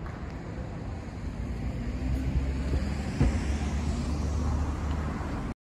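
Road traffic in front of a station plaza: a steady low rumble of vehicles that swells somewhat from about two seconds in, with a single knock about three seconds in. The sound cuts off suddenly just before the end.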